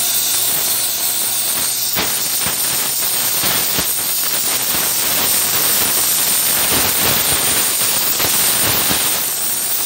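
Oxy-acetylene powder spray welding torch flame hissing steadily. About two seconds in, a crackling joins the hiss as the metal powder is fed through the flame onto the hot shaft.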